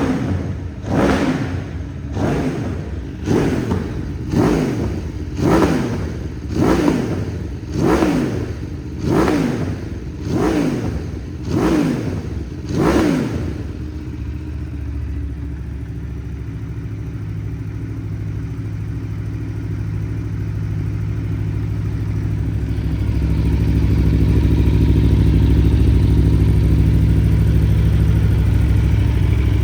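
Aprilia Tuono V4 1100 Factory's V4 engine through an Akrapovic carbon exhaust, blipped about once a second, a dozen quick revs that rise and fall. It then settles into a steady idle, which grows louder near the end.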